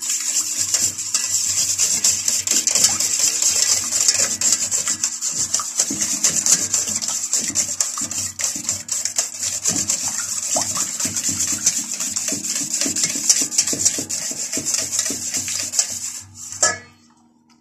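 Silicone spatula stirring and scraping thick chocolate cake batter against a stainless steel bowl, then scraping the batter out as it is poured into a round cake pan, with many small clicks and knocks of the bowl. A steady low hum runs underneath, and all of it stops suddenly near the end.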